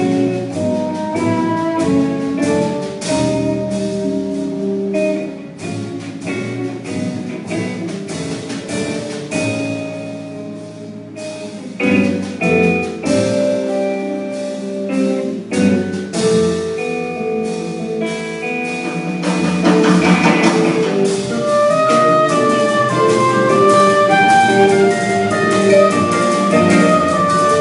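Jazz quintet playing live instrumental music, with vibraphone, guitar, double bass and drum kit heard together; the band grows louder about two-thirds of the way through.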